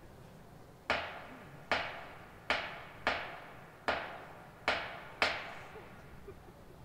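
A group of drummers striking their drums together in single hits, seven sharp strikes a little under a second apart, each ringing out with a long echo.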